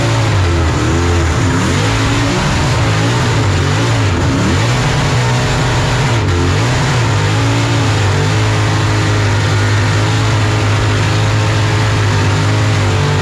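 Supercharged burnout car's engine revving hard, with tyre smoke filling the cabin. The revs rise and fall for the first few seconds, then hold steady and high.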